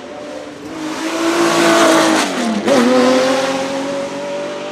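Porsche 917K's air-cooled flat-12 race engine at full song, growing louder as it comes close. About two and a half seconds in its note dips sharply and then climbs again as it pulls away, a little quieter.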